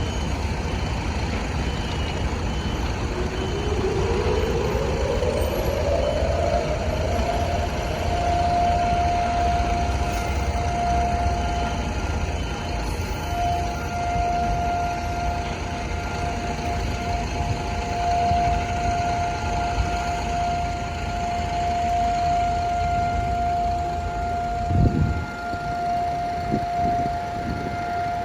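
Civil defense siren winding up in pitch over about four seconds, then holding one steady tone: the Holocaust Remembrance Day memorial siren. A low rumble underneath dies away about twelve seconds in.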